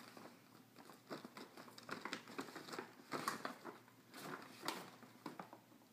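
Paper gift bag rustling and crinkling in a series of irregular crackles as hands rummage inside it.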